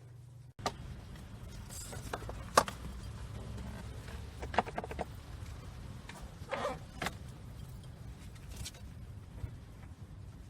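Scattered clicks, knocks and rustles of a child car seat and its straps and buckles being handled inside a car, over a steady low hum. The sharpest knock comes about two and a half seconds in.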